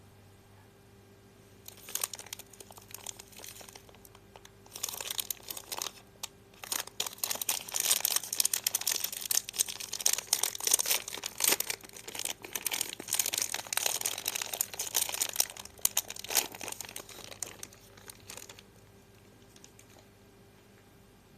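Close crinkling and crackling from handling a Harmony lemon soap bar. It comes in stretches with brief pauses and is loudest in the middle, then stops a few seconds before the end.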